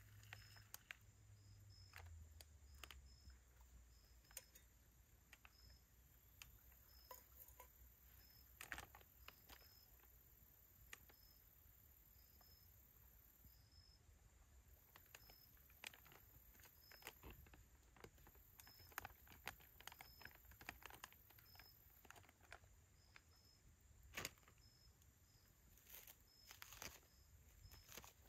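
Near silence, broken by scattered faint crinkles and clicks from a food pouch being handled, over faint high insect buzzing and short chirps.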